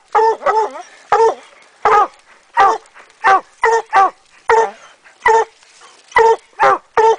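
Hunting hounds barking treed at a raccoon up a tree: a steady string of short, loud barks, about two a second, some coming in quick pairs.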